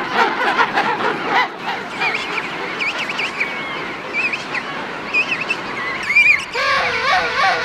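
King penguin colony calling: a dense chorus of many overlapping, wavering calls, with one louder call standing out near the end.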